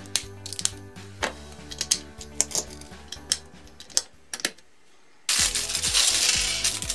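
LEGO bricks clicking as plastic pieces are pressed together, a quick run of sharp clicks over background music. About five seconds in, a loud rustle of a plastic parts bag being handled.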